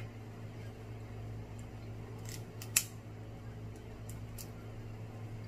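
Snow crab leg shells being cracked and snapped apart by hand: a few short, sharp cracks, the loudest nearly three seconds in, followed by a few fainter ticks.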